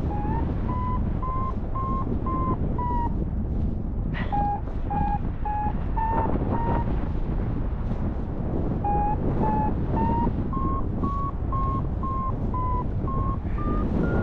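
Paragliding variometer beeping in short pulses, about two a second, in three runs with pauses between, the pitch stepping higher near the end: the climb tone that signals rising air in a thermal. Under it, a steady rush of air over the microphone.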